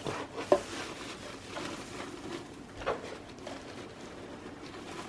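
Soft handling sounds of items and packaging being unpacked: light rustling with a few short clicks and knocks, the sharpest about half a second in.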